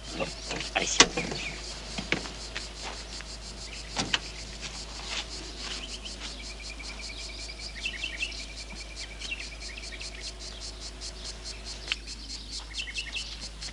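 Insects chirping outdoors in a fast, even pulsing, with a few sharp knocks in the first few seconds and a thin high tone in the middle.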